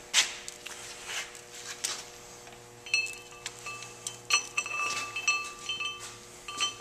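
Metal clinks and a bell-like ringing from a brake rotor mounted on a brake lathe as the silencing belt is fitted around its edge: a sharp clink just after the start, then from about three seconds in the rotor rings in several clear tones that start and stop with each touch.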